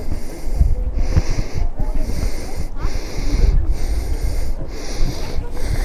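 Wind buffeting the microphone: a heavy, fluctuating rumble, with a hiss that swells and breaks off about once a second.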